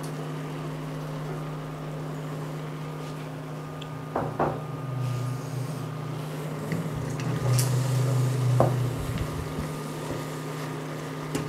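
Steady electrical hum of a Sonifer induction hob running under a stainless steel pot. From about four seconds in, a wooden spoon knocks and scrapes in the pot as the softening onions are stirred, and the hum shifts lower for a few seconds.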